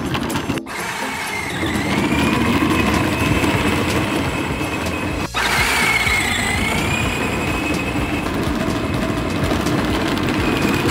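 Electric ride-on toy car driving over paving stones: a steady high motor whine that wavers in pitch over a rumble of the wheels, broken off twice by short cuts.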